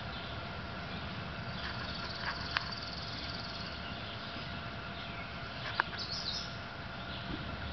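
Steady outdoor background hiss and low rumble with faint bird chirps: a high trill about two seconds in and a short chirp near six seconds. Two sharp clicks stand out, one about two and a half seconds in and one near six seconds.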